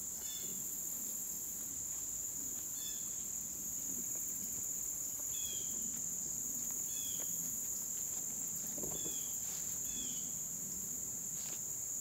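Steady, high-pitched chorus of late-summer insects in woodland, with a bird giving a short call about six times. Low rustling of footsteps through leaf litter and undergrowth underneath.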